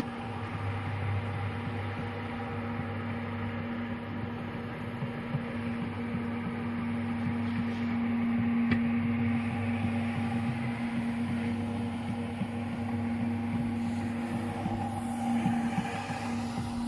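A machine's motor running with a steady, even hum.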